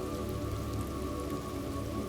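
Steady rain falling, an even hiss of drops, with soft held tones of background music beneath.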